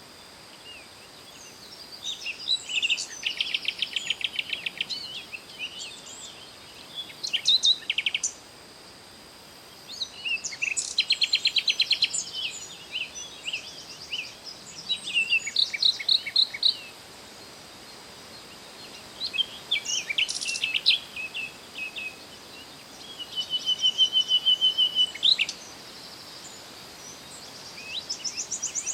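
Songbirds singing in short bursts every few seconds: rapid high trills and chirps with pauses between phrases, over a faint steady high-pitched hum.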